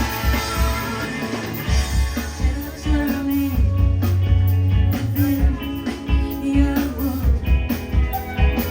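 Rock band playing live: electric guitar over bass and a steady drum beat.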